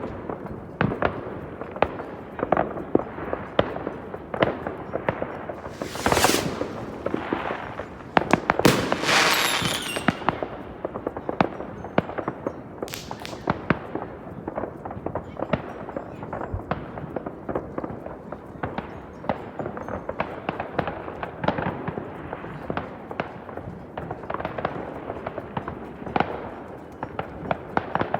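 New Year's fireworks going off all over town: a continuous barrage of overlapping bangs and pops. A few louder hissing bursts stand out, near six, nine and thirteen seconds in, the one around nine seconds the longest.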